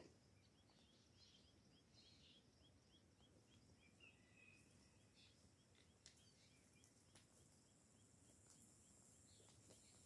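Near silence: faint outdoor ambience with a steady series of short, high chirps, about three a second.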